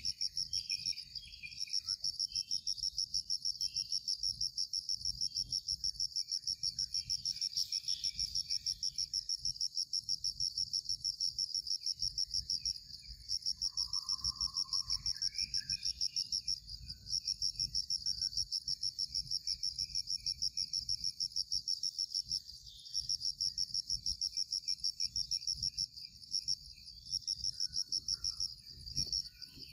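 Loud, high-pitched insect buzzing that pulses rapidly and evenly, breaking off briefly about thirteen and twenty-three seconds in. Fainter short chirps come and go beneath it, over a low rumble.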